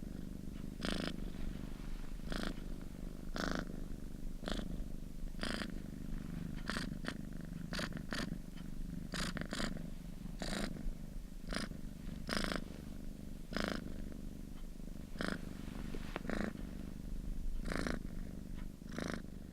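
Domestic cat purring, a steady low rumble that swells with each breath, about once a second.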